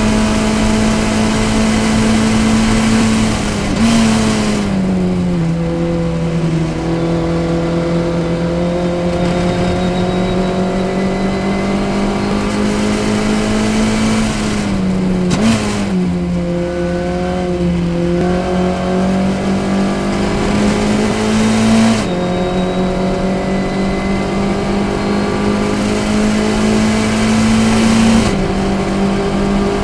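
Formula Ford race car engine at high revs under full throttle in fourth gear, heard from the cockpit. Its pitch drops sharply twice, about four seconds in and again about fifteen seconds in, as the driver lifts for a corner, then climbs slowly back as the car accelerates.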